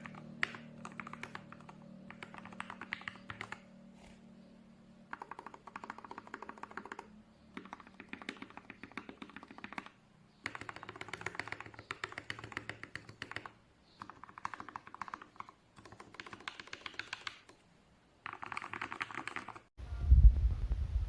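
Rapid typing on a mechanical keyboard: runs of fast key clicks a second or two long with short pauses between. A loud, low throbbing hum starts shortly before the end.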